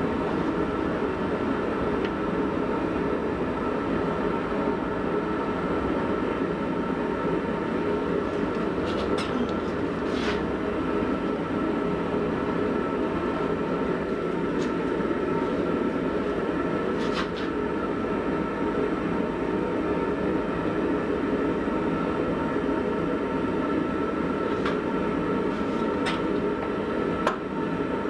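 Forge running with a steady, even roar, with a few faint clicks of metal now and then.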